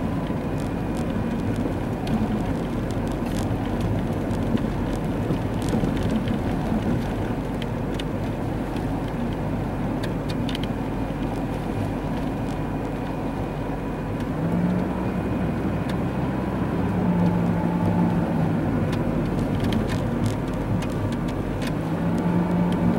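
Steady cabin noise of a car driving on a snow-covered road: tyre and engine noise, with a low engine hum growing louder about two-thirds of the way through.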